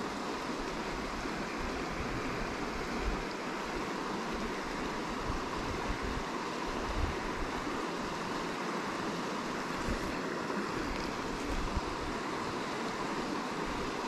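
Steady rush of flowing river water, with uneven low wind buffeting on the microphone.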